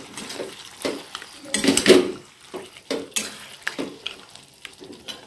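Metal spatula stirring and scraping mutton and tomato in a kadai, in irregular strokes with a light sizzle of frying underneath. The loudest scrapes come about two seconds in. The meat is being fried down in its masala for mutton kosha.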